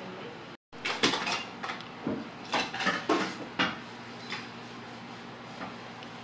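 Hard plastic parts of a baby activity centre clacking and knocking as they are handled and fitted together: a quick run of sharp clicks between about one and four seconds in, then only faint background.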